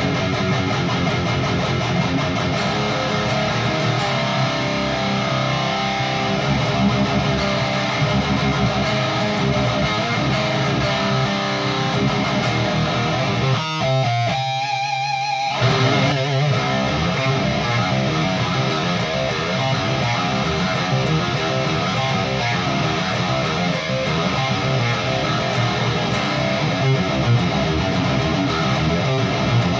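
Heavily distorted electric guitar playing metal riffs through a Peavey 6505 II tube amp, pushed by an AMM Amplified prototype single-knob overdrive pedal. The tone has a grinding upper-midrange bite and a crisp top end but little low-end thump. The low chugging drops out for a moment about halfway through.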